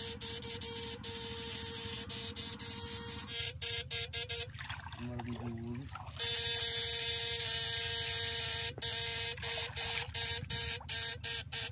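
Backpack electrofishing shocker buzzing as its probes are energised in the water, a steady high electric buzz over a constant hum. It cuts out and comes back several times as the trigger is pressed and released: a pause about four to six seconds in, a long loud stretch after it, then quick on-off breaks near the end.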